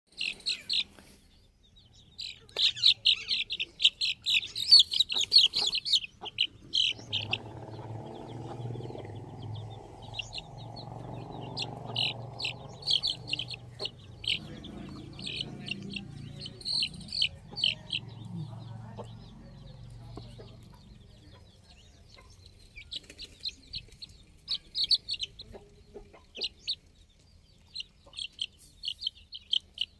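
Young domestic chicks peeping in rapid runs of short, high-pitched peeps. The calls are densest and loudest a few seconds in, with scattered bursts after that. A low steady hum sits underneath through the middle part.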